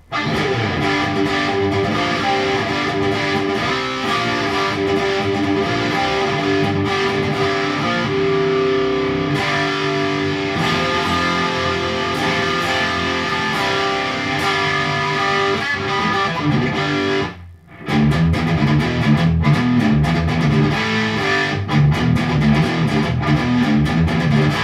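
Electric guitar through a Peavey Windsor valve head and its cabinet, with the gain at about 2 o'clock and no pedals, playing a crunchy, chunky rock riff. The playing stops briefly about 17 seconds in, then resumes lower down and more rhythmic.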